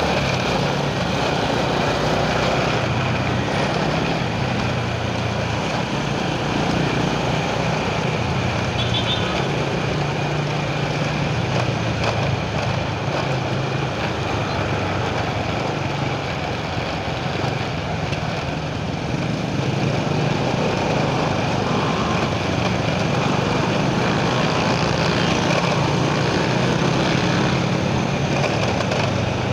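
A motor vehicle on the move: its engine runs steadily with road and wind noise, and the engine note drifts up and down a little.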